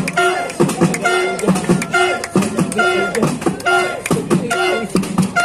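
Music with a steady beat: sharp percussive hits under a short pitched phrase that repeats about once a second.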